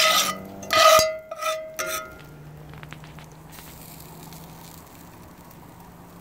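Cast-iron skillet and metal tongs scraping and clanking on a charcoal grill's metal grate, several ringing metal-on-metal strokes in the first two seconds. After that, a faint steady sizzle of butter melting in the skillet.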